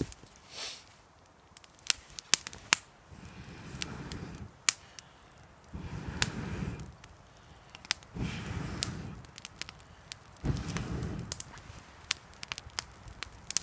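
A person blows on a campfire of kindling in four long breaths to get it going, while the burning wood crackles and pops with sharp snaps.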